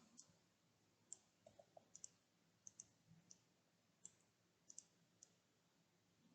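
Faint computer mouse clicks: about a dozen short, sharp ticks scattered irregularly, several in quick pairs, against near silence.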